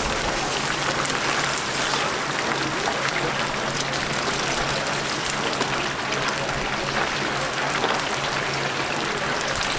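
Chicken pieces deep-frying in a commercial fryer: the hot oil sizzles and crackles steadily as pieces are stirred and scooped out with a mesh skimmer. A steady low hum runs underneath.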